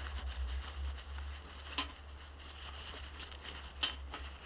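Light handling noise from items being taken out of a bag pocket: faint rustling with a couple of small clicks, over a low steady rumble.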